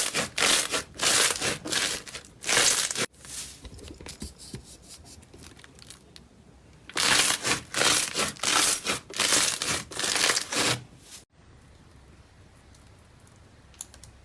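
Rhythmic rubbing or scraping strokes, about two a second, in two runs with a pause between them, stopping about eleven seconds in.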